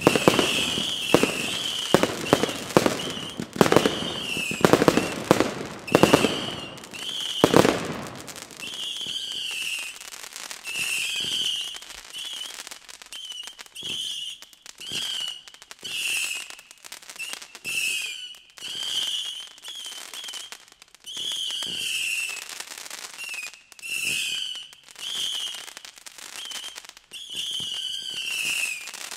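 Daytime fireworks: a rapid string of loud salute bangs for the first seven or eight seconds, then quieter bouts of hiss and crackle. A wavering high whistle comes and goes about once a second throughout.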